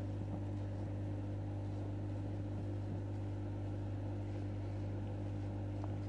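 Steady low electrical hum with faint background hiss.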